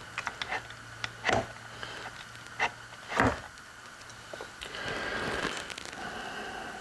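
Scattered knocks and clicks of metal engine parts being handled, with two louder knocks about a second and a half and three seconds in, followed by a couple of seconds of steadier noise.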